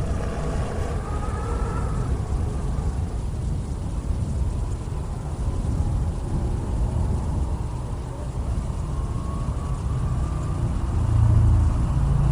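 A steady low rumbling noise, with faint wavering tones drifting over it.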